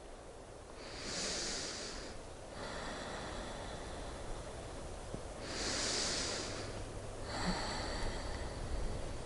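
A woman taking deep breaths through her nose while holding a yoga balance pose: three long, hissing breaths, each lasting a second or two.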